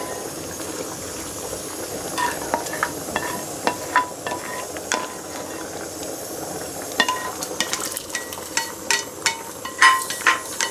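A plastic spoon scraping and knocking around a steel frying pan, each knock leaving a short metallic ring, over a steady sizzle. The knocks are sparse at first and come thick and fast in the last few seconds as the pan is scraped clean of the spiced oil.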